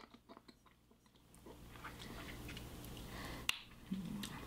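Faint wet mouth clicks and smacks of someone sucking on a hard-candy lollipop, with a short closed-mouth hum near the end.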